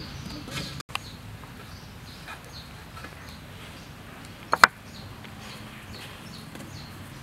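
Birds chirping in the background, short repeated high chirps, with one sharp knock about four and a half seconds in.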